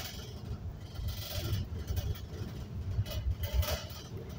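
Bus cabin noise while riding: a steady low engine and road rumble, with two brief louder rattling noises, about a second in and again near the end.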